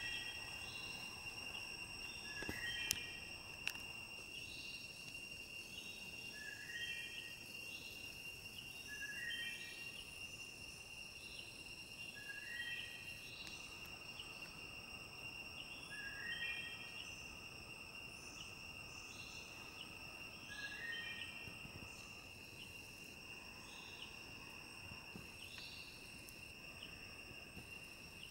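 Tropical forest insects, such as crickets or cicadas, drone steadily on several high tones. Over them a short stepped call repeats every few seconds. Two sharp clicks come about three seconds in.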